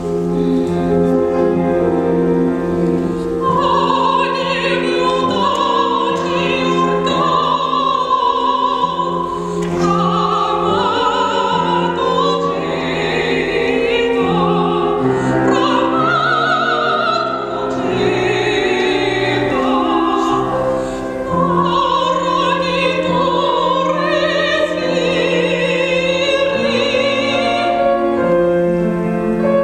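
Female classical voice singing an Italian art song in operatic style with vibrato, accompanied by grand piano. The piano starts at the very opening, and the voice enters a few seconds in with long held notes.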